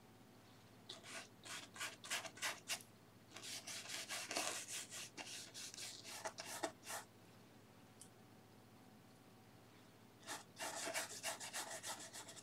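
Oil-painting brush scrubbing across textured canvas in quick, short, scratchy strokes, in three spells: about a second in, from about three and a half to seven seconds, and again from about ten seconds in.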